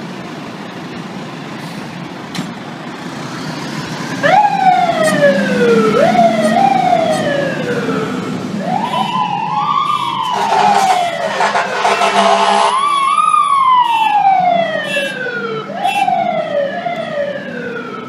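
Fire engine's siren sweeping up and down over and over, starting about four seconds in after the truck's engine and street noise, as the truck responds to a run. Around the middle, a few seconds of air horn blasts sound over the siren.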